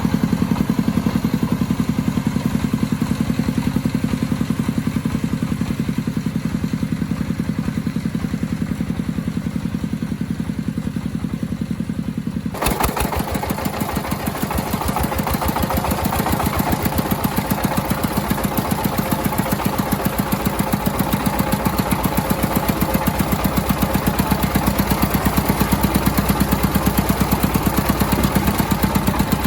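Engine of an agricultural vehicle running steadily with a rapid even chugging. About 13 seconds in the sound changes suddenly and gets harsher and brighter.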